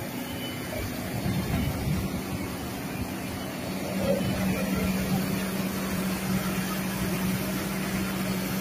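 Diesel engine of a Kobelco hydraulic excavator running close by as the machine swings a loaded bucket. A steady low hum strengthens about four seconds in.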